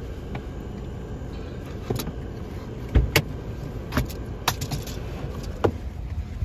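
Handling noise on a phone's microphone as it is swung around: about six sharp clicks and knocks at irregular times, the loudest about three seconds in, over a steady low rumble.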